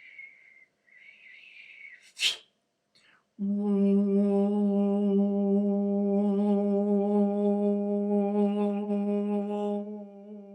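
A man making sound with his voice: two thin, high whistling tones, a brief sharp burst of breath-like noise about two seconds in, then from about three and a half seconds a long, steady hummed note on one pitch that grows quieter near the end.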